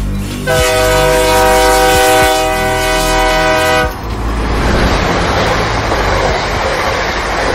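Electric locomotive's horn sounding one long steady blast of about three and a half seconds as the train draws into the platform, then the rolling rumble of the arriving train.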